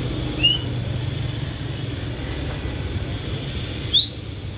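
Young caged hỏa tiễn sunbird giving two short, high chirps that slide upward, one about half a second in and a louder one near the end, over a steady low hum.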